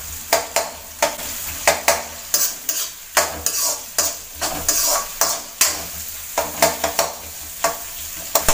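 Metal spatula scraping and clacking against an aluminium kadai, about two strokes a second, as sliced onions are stirred in hot oil, with a light sizzle of the onions beginning to sauté.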